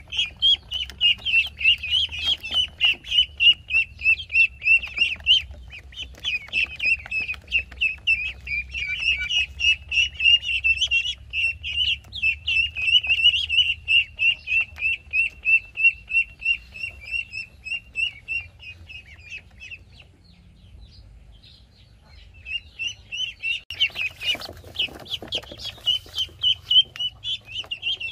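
A group of ducklings peeping insistently, with rapid high-pitched calls several times a second. The calls pause for a couple of seconds, then resume, with a brief rustling scuffle about two-thirds of the way through.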